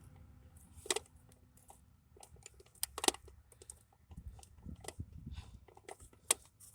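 Irregular clicks, taps and light scrapes of hands and a tool working at a distributor cap's hold-downs on a 1993 Chevy truck engine, with a few sharper clicks about a second in, around three seconds and near the end; the cap is not yet coming loose.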